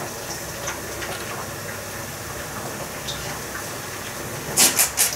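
Steady faint room hiss with a few light ticks, then, about four and a half seconds in, three short sharp crinkles of a packet being picked up and handled.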